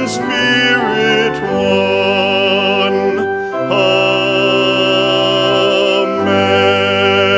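A man singing a slow solo with vibrato on long held notes, over held accompanying chords; the notes change about every two seconds.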